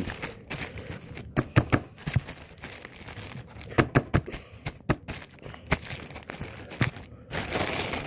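Clear plastic bag crinkling as a soft ball of dough inside it is pressed and shaped by hand, with irregular sharp pats and knocks against the surface and a longer stretch of rustling near the end.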